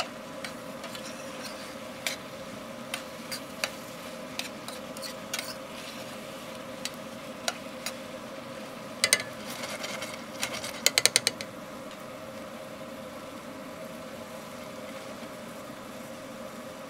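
Ground meat and vegetables sizzling in a steel frying pan over forge coals, with a spatula scraping and clicking against the pan during the first ten seconds or so and a quick run of clicks about eleven seconds in. After that only the steady sizzle is left, with a steady hum underneath.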